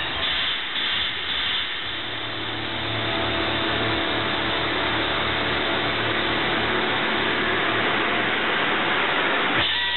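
Promotional-movie soundtrack played loud over a hall's speakers: music under a steady wash of noise that swells slightly after a couple of seconds and cuts off suddenly near the end.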